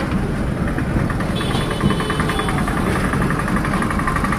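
Truck's diesel engine running, heard from inside the cab in slow traffic, with a light, fast, even rattle over it.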